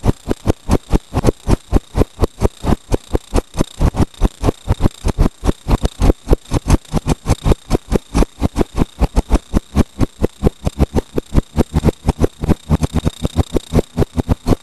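Loud, even pulsing of about five beats a second from a faulty camera's sound recording, covering up the car it was filming in, with a thin steady high whine above it.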